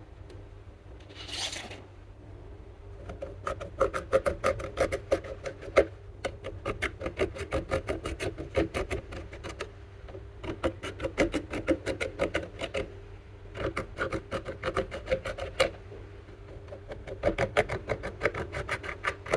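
Slime being kneaded and pressed by hand, giving rapid sticky clicks and pops in runs of a few seconds with short pauses between. A brief hiss comes about a second in.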